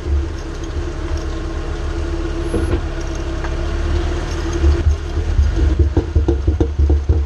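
Mercedes ML350 driveline running with a deep steady rumble and a constant drone, then a rapid run of knocks from about five seconds in: the noise of a worn driveshaft carrier bearing.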